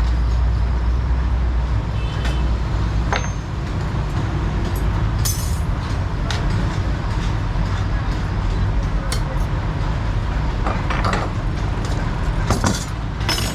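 Scattered sharp metallic clinks and taps, as of hand tools on metal parts, over a steady low rumble of vehicle traffic or engines.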